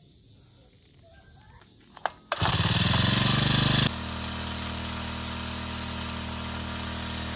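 Small four-stroke portable power sprayer running while its spray gun sends out a fine mist. A click about two seconds in, then the spray hiss and engine come in loud, and from about four seconds in they settle to a steadier, quieter engine hum with hissing spray.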